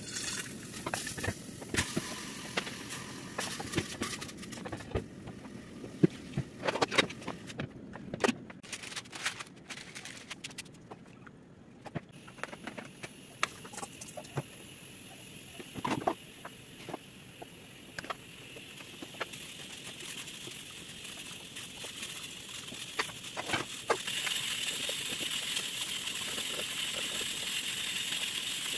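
Home cooking on a gas stove: scattered clinks and knocks of metal pots, lids and utensils, and rinsed rice being poured into a pot. A steady sizzle builds toward the end and gets louder about four seconds before the end, as chopped garlic fries in oil.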